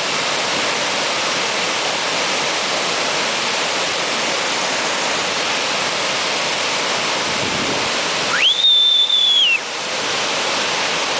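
Salto Baiguate waterfall pouring into its plunge pool, a steady rush of falling water. About eight seconds in, a single loud whistle sweeps up and holds one high note for about a second before dipping off.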